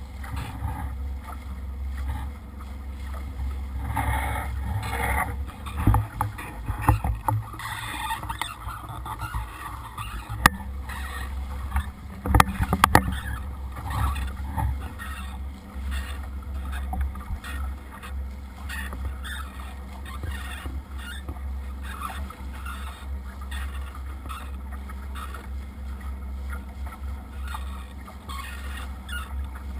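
Water rushing and splashing at the bow of a boat motoring at about five knots, over a steady low rumble, with a few sharp knocks about ten to thirteen seconds in.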